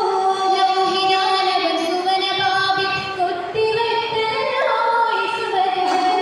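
A group of girls singing an Oppana song (Mappila song) together into stage microphones, with long held notes that step and glide from one pitch to the next.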